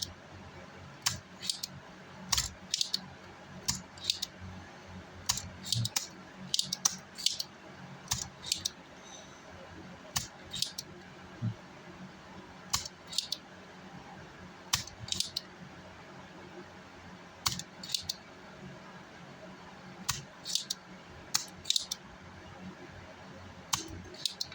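Sharp little metallic clicks and taps of hand tools on an amplifier's circuit board while solder is cleared from its through-holes. They come irregularly, often in quick pairs, a few seconds apart, with a faint steady hum underneath.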